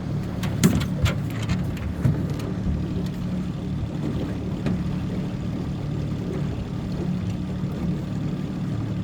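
A boat's motor running steadily at low speed, a low even hum, with a few sharp knocks in the first couple of seconds.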